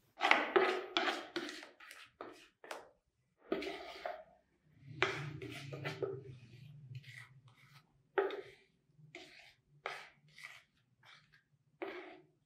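A series of short scrapes and taps from a plastic mixing bowl being handled, with a spoon scraping leftover plaster out of it. The loudest scrapes come in the first two seconds, and a faint low hum runs for a few seconds in the middle.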